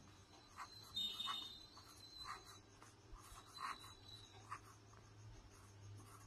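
Pen writing on notebook paper: faint, short scratching strokes as a word is written by hand.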